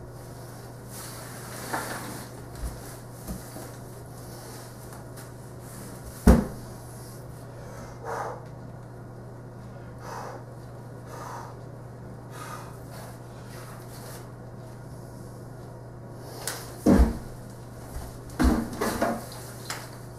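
A broom sweeping hay across a hardwood floor: scattered rustles and scrapes, with several hard knocks on the floor. The loudest knock comes about six seconds in and a cluster comes near the end, over a steady low hum.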